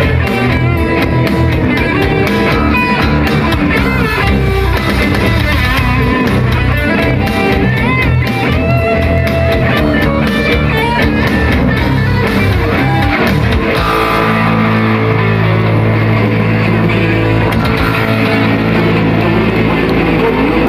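A metal band playing live, electric guitars driving a fast rhythm. About two-thirds of the way through, the music settles into a long held low chord.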